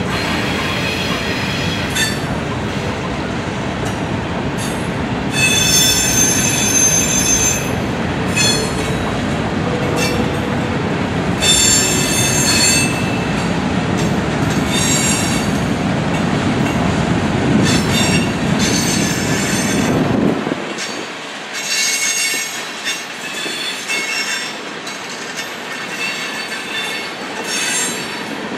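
Freight train cars rolling past: a steady rumble of wheels on rail, broken by repeated bursts of high-pitched squealing. The low rumble drops away sharply about twenty seconds in.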